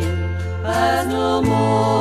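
Women's vocal quartet singing a gospel song in harmony, the voices wavering with vibrato, over instrumental accompaniment whose low held bass note changes about three quarters of the way through.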